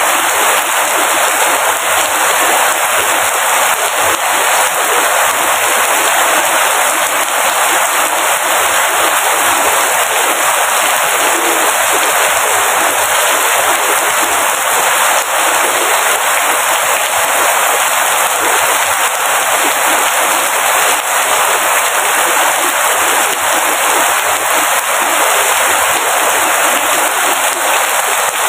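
Steady rain falling hard: a dense, even hiss of countless drops that goes on without a break.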